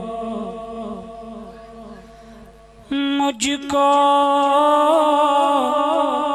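A man singing a Punjabi naat unaccompanied, with a wavering, ornamented voice. A held line fades away, and after a short lull the next line ("mujhko...") begins abruptly about three seconds in. A brief sharp glitch follows just after it starts.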